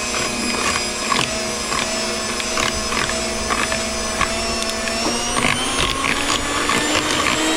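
Electric mixer running steadily while mixing cake batter, its motor whine rising slightly in pitch about two-thirds of the way through, with irregular clicks over it.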